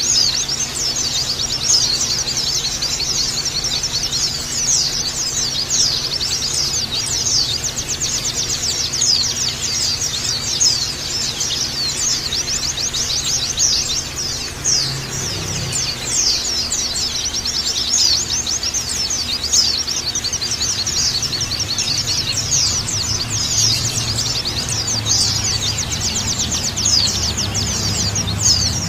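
Many white-eyes (pleci) chirping and twittering at once in a dense, unbroken stream of rapid high chirps, with a steady low hum underneath.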